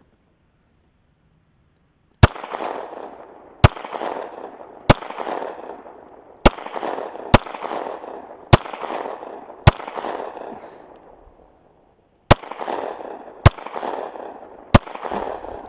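Ten single gunshots, fired one at a time about a second apart, each followed by a ringing echo. There is a short pause after the seventh shot.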